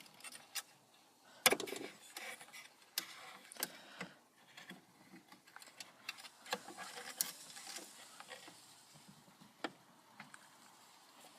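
Irregular clicks, taps and handling noises of hands fastening a plastic zip tie around a car speaker inside the dash, with one sharper knock about a second and a half in.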